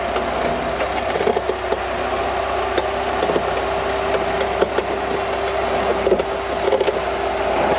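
Rock crawler buggy's engine running at a low crawl as it works its tires up a sandstone ledge, with a steady whine and scattered sharp clicks from the tires and chassis on the rock.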